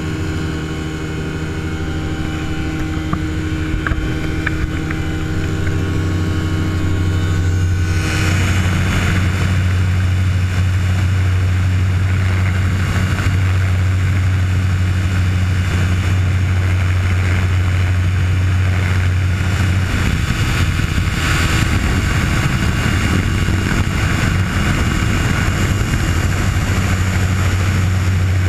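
Ultralight aircraft engine and propeller droning steadily in flight, recorded on board with heavy airflow noise. About 8 s in, the sound changes abruptly from a smoother engine hum to a louder rush of wind over the hum.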